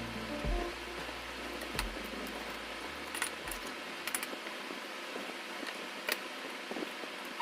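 A few faint, scattered clicks and light clinks, about half a dozen, over a steady low hiss. A low hum fades out about three and a half seconds in.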